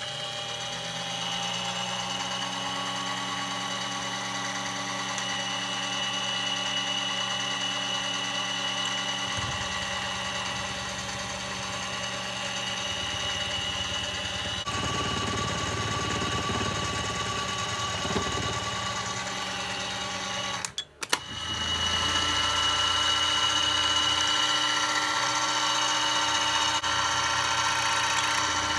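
Harbor Freight mini milling machine running, its spindle motor whining with several steady tones while a quarter-inch carbide end mill cuts a flat spot into a pen. The sound breaks off for a moment about two-thirds of the way through and comes back a little louder.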